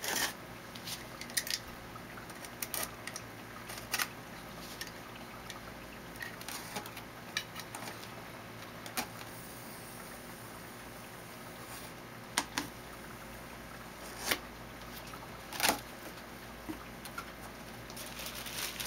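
Box cutter slitting the packing tape on a cardboard box, with irregular scrapes and taps of the blade and hands on the cardboard, and the flaps being opened near the end.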